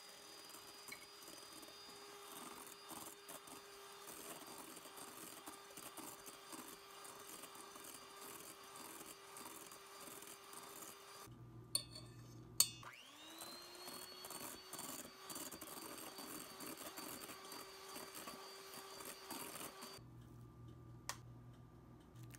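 Electric hand mixer whipping meringue in a stainless steel bowl with a steady high motor whine. About halfway it cuts off, two sharp clicks follow, and the motor spins back up with a rising whine and runs steadily again. It stops near the end, and one more click follows.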